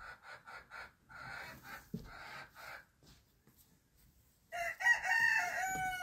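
A rooster crows once near the end, a single long call of under two seconds. Before it come softer, quick rhythmic sounds.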